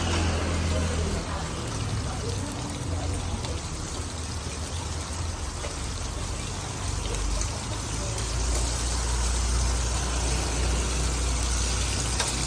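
Steady street background noise with the low rumble of passing engine traffic, heaviest in the second half, and faint voices under it.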